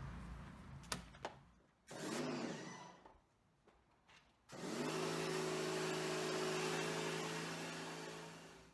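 Pressure washer spraying a nylon seatbelt: a brief burst of the pump motor about two seconds in, then a steady run with the motor hum and spray hiss for about four seconds before it winds down near the end.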